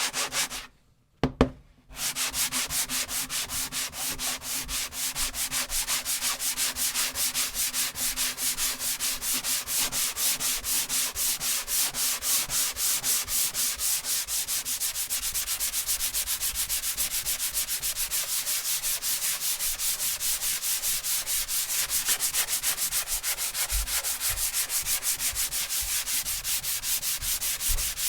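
Sandpaper rubbed back and forth on wood in quick, even strokes, fine finish sanding. The strokes stop briefly near the start, with one sharp knock about a second and a half in, then run on steadily.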